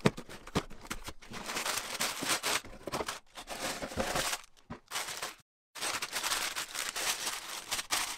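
A LEGO set's cardboard box being torn open, with the plastic parts bags crinkling and rustling and small sharp clicks of handling. There is a brief break of dead silence about five and a half seconds in.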